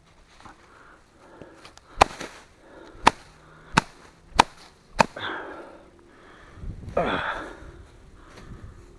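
Five sharp smacks, roughly a second apart, as an arrow-shot koi carp is handled on dry grass, followed by rough rustling and handling noise.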